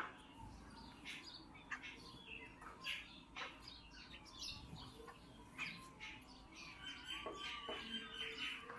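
Small birds chirping: many short, scattered chirps, turning into a more continuous twittering song about seven seconds in.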